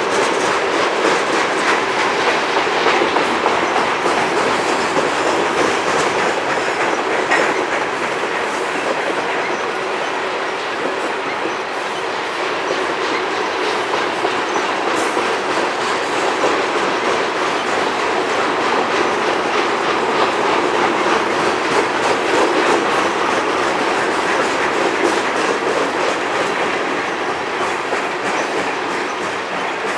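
Union Pacific grain train's freight cars rolling past, with a steady clatter of wheels over the rails that keeps up throughout.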